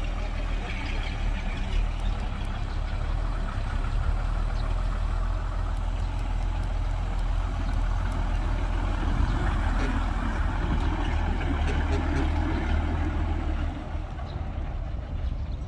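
Heavy diesel construction machinery running, a steady deep engine rumble that grows louder for a few seconds past the middle and eases near the end.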